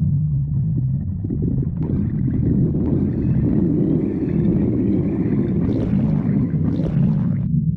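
Stomach growling: a continuous low rumble that becomes fuller and brighter from about two seconds in and falls back shortly before the end.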